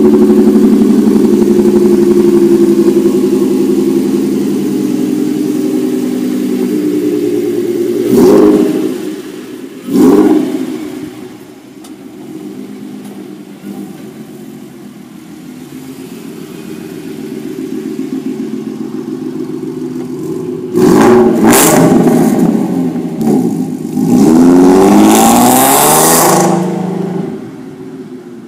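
Car engine running, then revved hard several times: short blips about 8 and 10 seconds in, and longer rising revs from about 21 to 26 seconds, after which it falls back to a low level.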